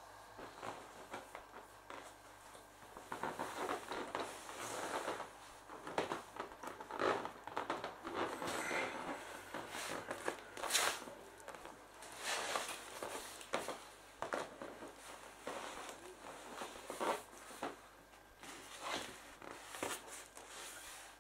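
Vinyl of an inflatable clownfish pool toy being handled: the plastic rubs and crinkles in uneven, irregular strokes, busiest in the middle.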